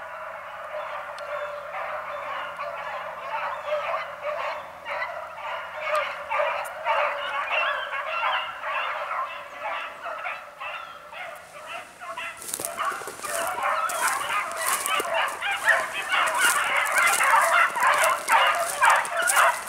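A pack of beagles in full cry, many hounds baying at once as they run a scent line on a chase. The cry grows louder about twelve seconds in.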